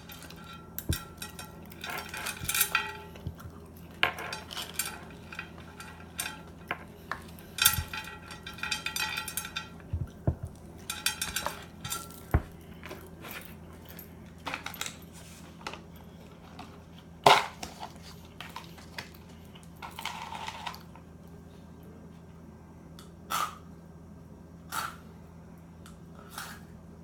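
A fork clinking and scraping against a bowl in quick clusters while salad is eaten, thinning to scattered single clicks in the second half. A faint steady low hum underneath.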